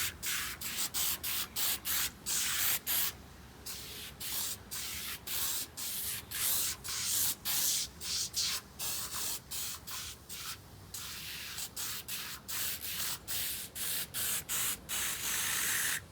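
Aerosol can of oven cleaner hissing in many short spurts, a few a second with brief breaks between them, as a thick coat of degreaser goes onto greasy engine parts.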